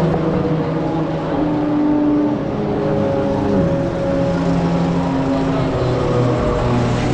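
Several go-kart engines droning on the circuit, overlapping at different pitches that rise and fall as the karts speed up and slow down.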